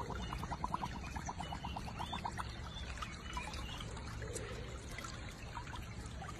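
Shallow stream water trickling and flowing. A rapid run of faint ticks, about eight a second, sits over it for the first two seconds or so.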